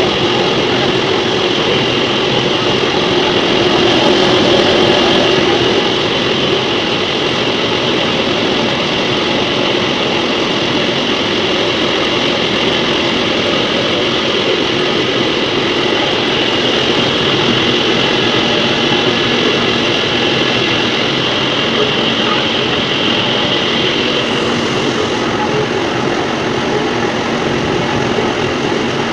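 MAXIA MX-LP220 industrial washing and peeling machine running with cassava, a steady, even mechanical noise.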